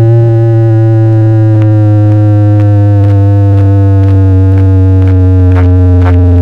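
A very loud, sustained synthesizer bass tone played through a DJ sound-box rig, sliding slowly down in pitch, with faint beats starting to come in near the end.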